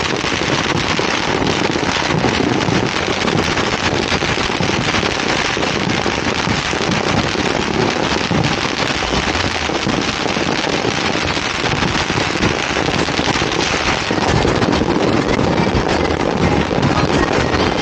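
Firecrackers going off in a dense, unbroken crackle of countless small pops.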